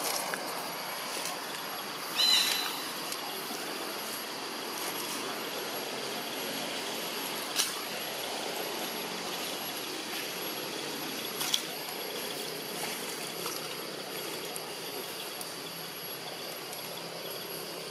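Steady outdoor forest ambience with a constant high insect drone, a short high chirp about two seconds in, and a couple of faint clicks.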